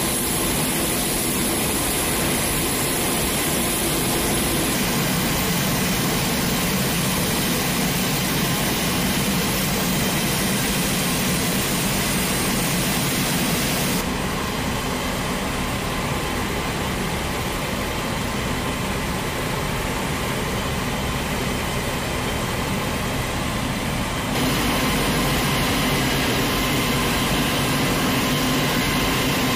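Steady engine noise from an M142 HIMARS rocket-launcher truck driving slowly across an airfield apron, mixed with general airfield engine noise. The sound shifts slightly at a few edits, about five, fourteen and twenty-four seconds in.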